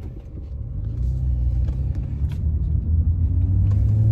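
Low rumble of a car under way, heard from inside the cabin at the back seat, growing steadily louder over the few seconds.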